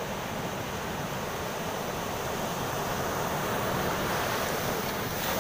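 Ocean surf: waves breaking and washing up over the sand at the water's edge, a steady rush that swells a little about three to four seconds in.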